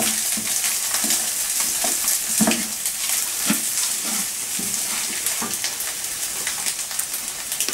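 Fried rice sizzling in a pan with a steady hiss, stirred with short, irregular scraping strokes every second or so.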